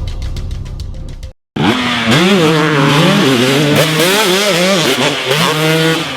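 Intro music ends about a second in, followed by a brief cut to silence. Then a two-stroke dirt bike engine revs hard, its pitch rising and falling over and over as the rider works the throttle.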